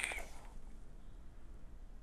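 An e-cigarette draw ends just after the start: a steady high whistle with crackling stops, leaving faint room tone.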